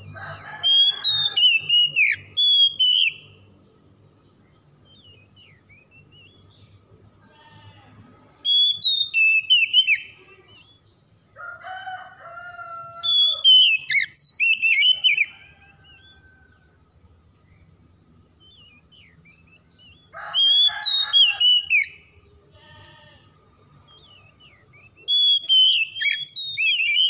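Oriental magpie-robin (kacer) singing in five bouts of quick, varied whistled phrases, each a second to a few seconds long, with pauses between. This is the full 'gacor' song used as a lure to set stressed or silent kacers singing.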